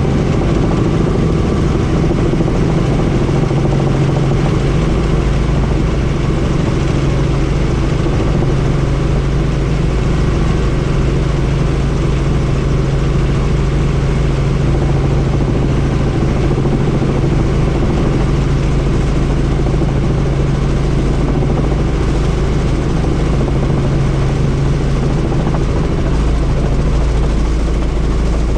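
Helicopter running steadily, heard from on board: an even, loud drone of rotor and engine with a steady low hum.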